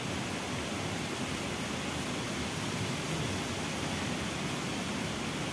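Steady rushing of flowing stream water: an even hiss with no breaks or separate sounds.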